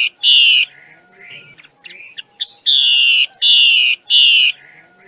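Female Chinese hwamei calling: loud, harsh notes about half a second long, one just after the start and then a quick run of three about two and a half seconds in, with softer short notes between.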